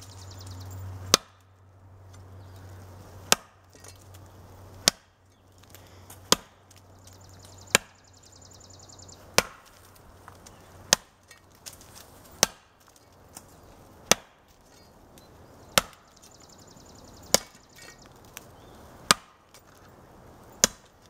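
Baryonyx machete chopping into a standing wooden stump in light, even swings: thirteen sharp strikes, about one every second and a half.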